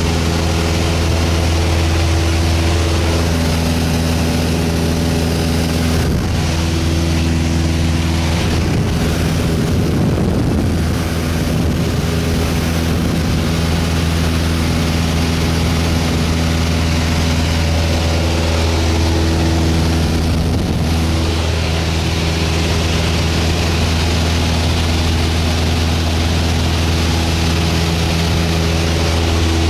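Steady drone of a single-engine propeller plane's engine and propeller heard from inside the cabin, holding one pitch in cruise, with wind rush over it. There are a few seconds of rustling about a quarter of the way in.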